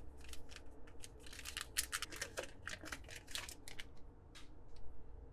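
Wrapper of a hockey card pack torn open and crinkled in the hands: a quick run of sharp crackles that stops about four and a half seconds in.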